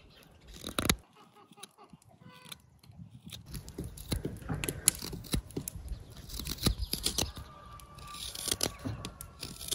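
A knife and a hook knife shaving small cuts from a tiny wooden spoon, making short scraping slices as thin chips come off. There is one sharp cut about a second in, then a brief lull, then a quick run of short scraping strokes as the hook knife hollows the bowl.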